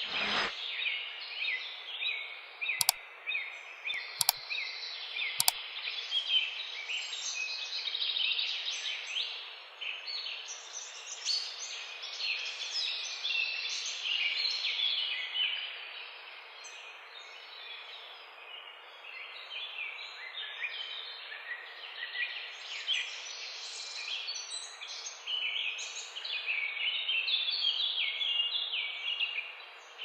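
Many small birds chirping and calling over one another, in an irregular chorus over a steady background hiss. Three sharp clicks come a few seconds in.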